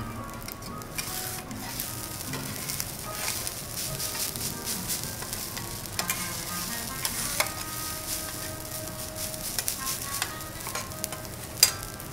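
Garlic rice sizzling on a hot steel teppanyaki griddle while metal spatulas scrape and tap against the plate, turning the rice. The sharpest clack comes near the end.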